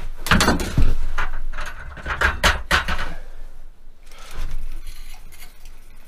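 Clattering knocks and thumps as someone scrambles up in a small ice-fishing shack and grabs an ice rod, followed by quieter clicks and rustling as the spinning reel is worked to bring in a fish.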